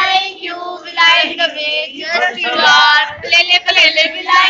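A group of women singing together, loud, with long held notes that bend in pitch.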